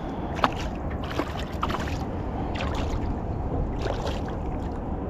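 Short splashes and knocks at the side of a small fishing boat as a hooked fish is brought in, over a steady low rumble of water and boat noise.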